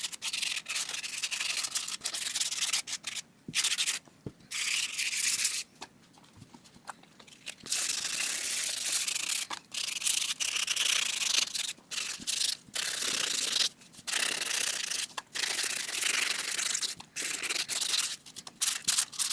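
220-grit sandpaper rubbing over a helmet mask, scuffing the surface ahead of primer: a high, gritty hiss in runs of rubbing broken by short pauses.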